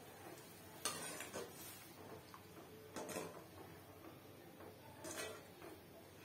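Perforated metal ladle stirring a thick curry in a metal pot, with a few soft scrapes and clinks against the pot: about a second in, around three seconds and again near five seconds.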